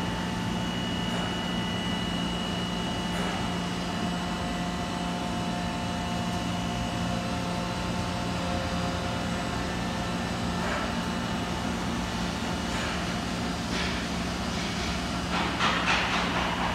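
DMG Mori DMU 200 Gantry five-axis milling machine running a test cycle: a steady hum with thin high whines from the axis drives as the head travels and swivels. In the last couple of seconds uneven spurts of rushing noise join in.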